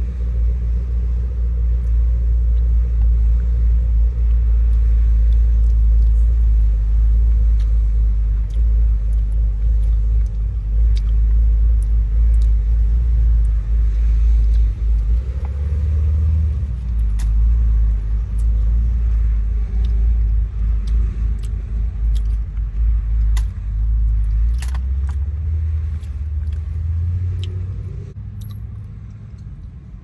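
Steady low rumble inside a car cabin, easing off near the end, with scattered small clicks and soft crinkles of a burrito being eaten.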